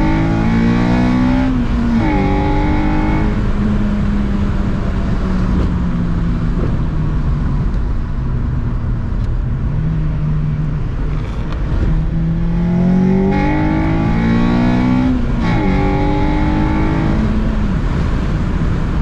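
Road vehicle's engine accelerating through the gears. The pitch climbs and drops back at gear changes about a second and a half in and again near the end, and runs at a steadier pitch in between.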